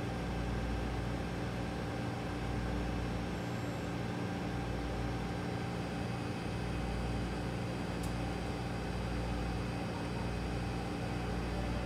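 Steady machine hum: several held low tones over an even hiss, with a faint high tick about eight seconds in.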